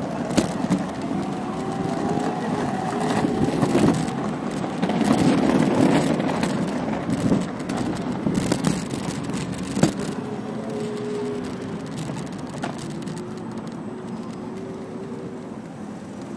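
Ride noise from an electric scooter: wind and tyre rumble over paving, with a thin steady motor whine that rises slightly near the end. A few sharp knocks, at the start and about ten seconds in, come from bumps.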